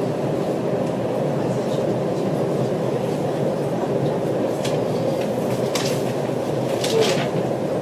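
Steady rumble and hum of a train carriage heard from inside, with a few faint clicks in the second half.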